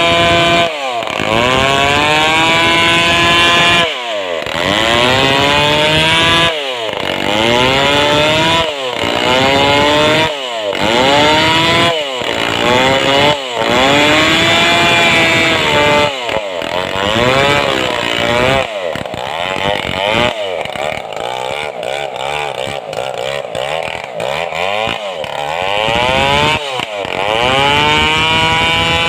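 Two-stroke Stihl chainsaw cutting a large sengon log, its engine note sagging under load and climbing back every couple of seconds. About two-thirds through it drops to a lower, rougher run for several seconds, then revs up again near the end.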